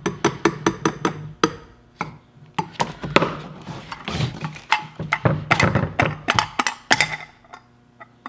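Repeated sharp metal knocks: a long socket extension with a 3/4-inch socket on its end is hammered against the spacer and seal inside a power steering rack housing to knock the seal out. The knocks come about three a second at first, then faster and in clusters.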